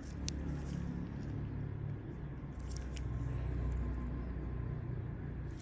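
A low rumble that swells toward the middle and eases off again, with a few faint clicks.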